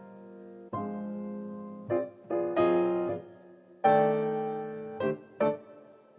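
Background music: piano chords struck and left to ring out, with a few quick notes in between.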